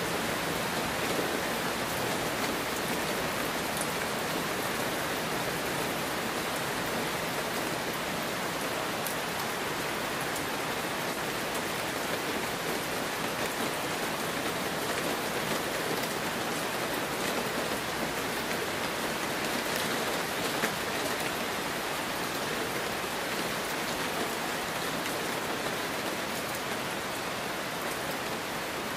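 Heavy rain falling steadily: a dense, even hiss of drops.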